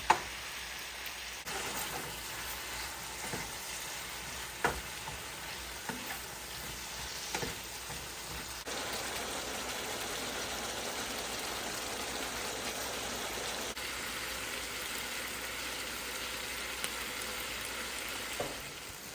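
Chicken and fajita vegetables sizzling in a frying pan, a steady hiss that grows a little louder about nine seconds in, with a few sharp clicks scattered through it.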